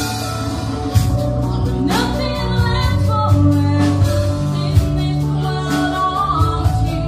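A live rock band plays a song: drum kit, bass guitar and guitar, with a voice singing the melody.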